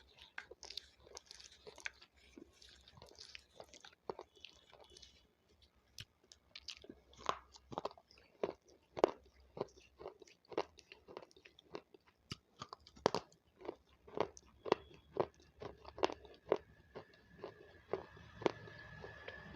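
Close-up chewing of raw capsicum (bell pepper): crisp, wet crunches, settling into a steady rhythm of about two a second after the first few seconds.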